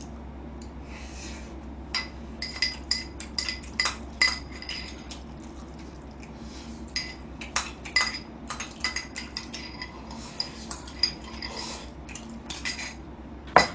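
A spoon clinking and scraping against a small cup as someone eats from it: irregular sharp clinks with a short ring, several a second at times, with brief pauses between.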